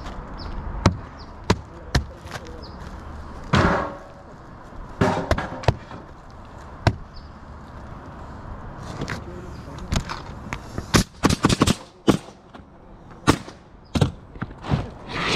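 Pneumatic roofing nailer firing irregular sharp shots as asphalt shingles are nailed down, with a quick run of shots about eleven seconds in.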